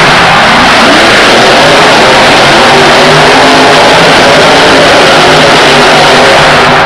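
Monster truck's supercharged V8 engine revving up and down as it spins on the dirt floor, very loud.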